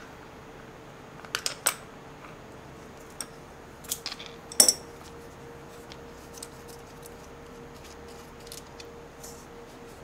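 Small metal clicks and clinks of an adjustable wrench and a panel nut being worked loose from the timer module's control shaft. The loudest clink comes about four and a half seconds in, followed by light handling ticks.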